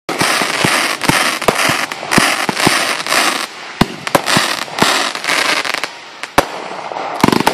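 Fireworks display: a dense, continuous crackle of many small reports mixed with sharp bangs of bursting shells. The crackling thins out after about three and a half seconds, leaving separate bangs.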